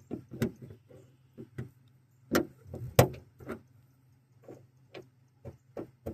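Irregular clicks and knocks of a small part and hand tools being handled, the two loudest about two and three seconds in, over a faint steady low hum.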